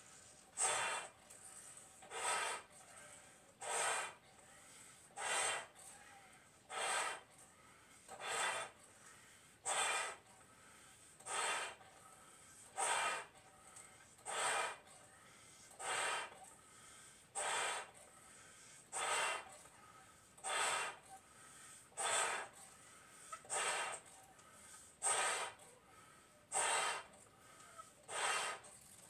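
A person inflating two bobo balloons by mouth through a forked connector, taking a quick, sharp breath about every second and a half between blows, the balloons stretching as they fill; no burst.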